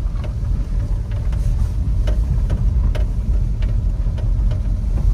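Daihatsu Hijet kei truck on the move, heard from inside: a steady low engine and road rumble with scattered rattles and knocks from the rough track.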